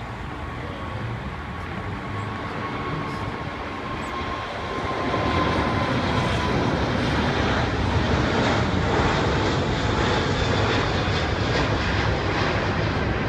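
Airbus A380 jet airliner taking off, its four turbofan engines at takeoff thrust as it climbs out. Steady jet engine noise with a faint, slowly falling whine, growing louder about five seconds in and staying loud.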